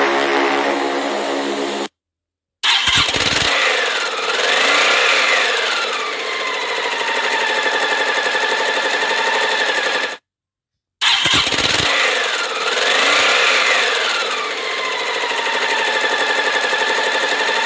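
An engine starting with a thump, revving up and back down once, then running steadily with a fast pulsing beat; the same short recording plays twice with a brief silence between. Before it, a different steady buzzing sound cuts off about two seconds in.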